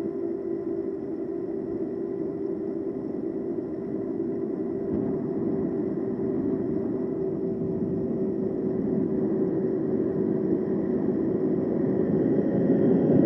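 Road noise of an e-bike ride: a steady motor whine over wind and tyre noise. The rumble slowly grows louder towards the end as a truck comes up from behind to overtake.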